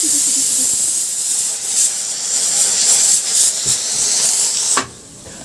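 Pressure cooker whistle: steam jetting out with a loud, high hiss that pulses a little, then cuts off suddenly near the end. It is the sign that the cooker has come up to pressure.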